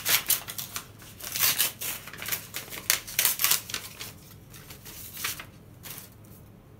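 Paper envelope being torn open by hand: a quick run of ripping and crackling paper over the first four seconds, then a few lighter rustles as the card is drawn out.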